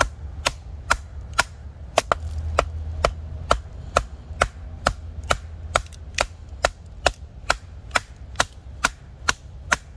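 A baton striking the spine of a kukri set across an upright stick of firewood, batoning the blade down to split it. It gives even, sharp knocks at about two a second, steady throughout.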